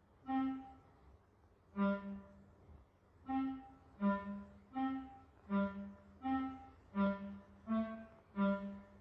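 Orchestral film score: a run of short, soft, pitched notes, each with a brief higher note over a lower one. They start about a second and a half apart and quicken to roughly one every 0.7 s, like raindrops beginning to fall.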